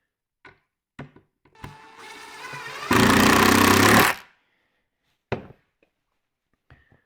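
Cordless power driver driving a screw into plywood: the motor spins up with a rising whine, then runs loudly for about a second as the screw draws tight, followed by a short click.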